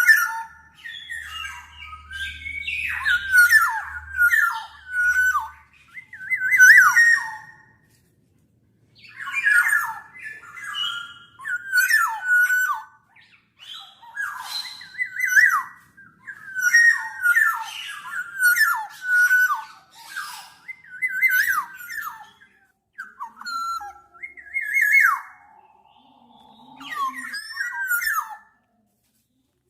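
Black-naped oriole calling: a string of short, quick whistled and harsh notes repeated in bursts, with brief pauses between them.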